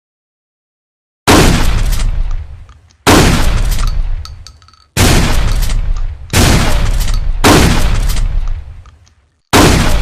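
Trench shotgun firing six shots about a second or two apart, starting about a second in, each blast followed by a long fading echo.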